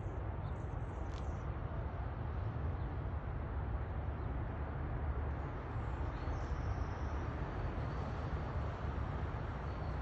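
Steady low outdoor rumble with a light hiss over it. There are a couple of faint, short high ticks or chirps about a second in and again about six seconds in.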